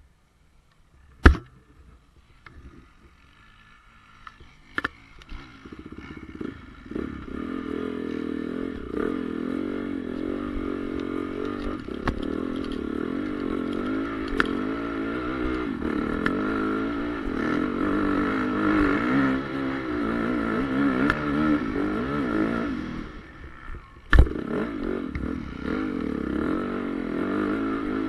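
Honda CRF450R motocross bike's single-cylinder four-stroke engine, faint at first, then louder from about six seconds in and running with revs rising and falling as it is ridden. It drops away briefly near the end and comes back; two sharp knocks come in the first few seconds and a loud knock near the end.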